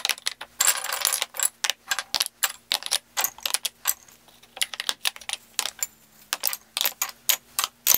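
Wooden utensils dropped one by one into a plastic tote, clattering against the plastic and each other in many irregular clicks and knocks, with a short scrape about a second in.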